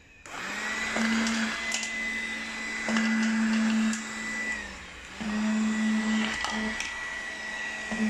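Makita DCL180Z 18V cordless stick vacuum switched on, its motor humming with a steady high whine. Sharp clicks come as small ball bearings are sucked up the nozzle. Around the middle the motor winds down briefly and then starts again.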